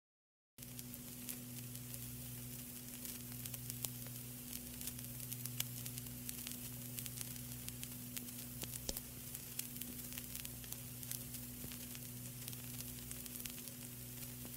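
Vinyl record surface noise: a steady hiss full of crackles and pops, over a low steady hum, starting suddenly about half a second in.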